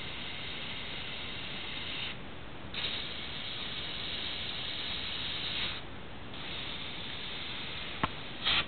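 Airbrush hissing as it sprays paint onto a T-shirt, stopping twice for about half a second. A few sharp clicks come near the end.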